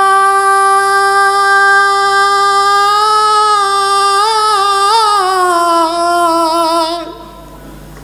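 A male Cantonese opera (yuequ) singer holds one long sung note on a single syllable. It is steady at first, wavers with vibrato about halfway through, then slides down in pitch and stops about seven seconds in.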